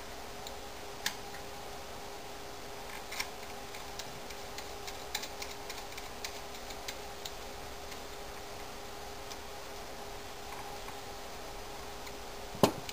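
Scattered light clicks and taps of a screwdriver and small friction-tuner parts being handled, with one sharp click near the end, over a steady hum.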